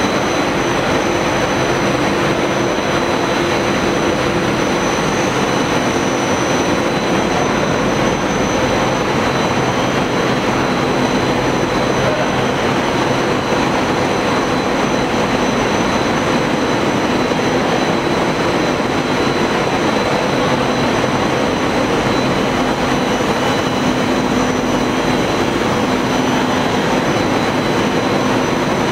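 PVC coil mat production line running: a steady, even machinery noise with a few constant tones, one around mid-pitch and others high up, unchanging throughout.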